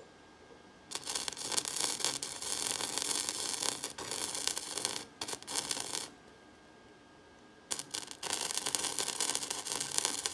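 Electric welder crackling in two long bursts, the first about five seconds and the second starting near eight seconds in, laying weld on the bandsaw-steel billet.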